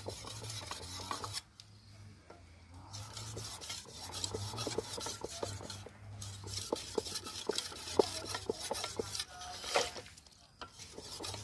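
Thick steel cleaver being sharpened on a wet clay brick used as a whetstone: repeated rasping scrapes of the blade stroked back and forth. The strokes stop for a moment about a second and a half in and again near the end.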